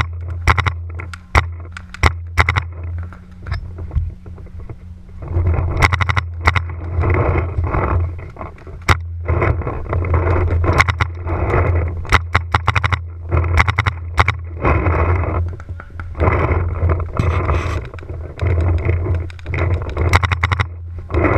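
Wind buffeting the action-camera microphone in gusts, a steady low rumble with surges of rushing noise. Through it, sharp pops of paintball markers firing, scattered and sometimes in quick strings of shots.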